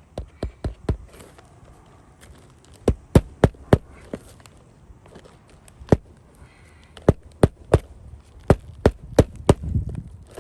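Hammer driving roofing nails through a replacement asphalt shingle, sharp blows in quick groups of three or four with short pauses between nails.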